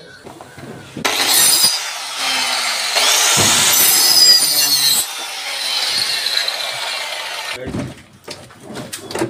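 Handheld electric saw cutting plywood. It starts about a second in, runs for about six seconds and stops. A few sharp wooden knocks follow near the end.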